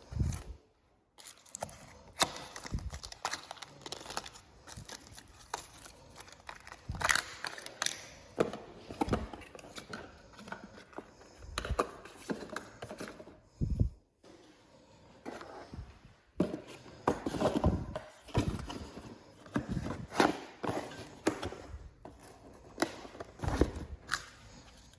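Irregular knocks, clicks and rustling from hands-on installation work and moving about in a small room.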